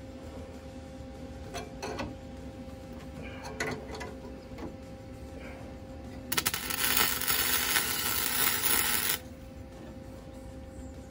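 A small self-shielded flux-core (Innershield) wire welder laying a bead on steel, crackling and spitting for about three seconds starting around six seconds in. Before it come a few light metal clicks, over a faint steady hum.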